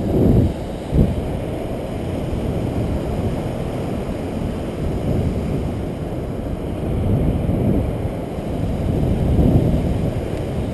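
Wind buffeting the action camera's microphone: a steady low rumble with stronger gusts near the start and again near the end.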